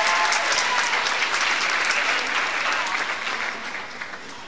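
Audience applauding in a hall, the clapping fading out near the end.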